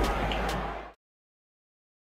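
Ballpark crowd noise with a low hum on a TV baseball broadcast, cut off abruptly to dead silence about a second in.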